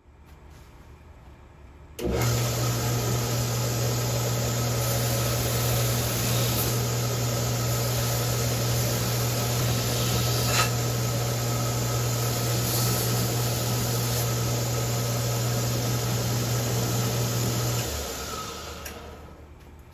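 An electric power tool switched on about two seconds in, running steadily with a deep hum and hiss for about sixteen seconds, then switched off and winding down.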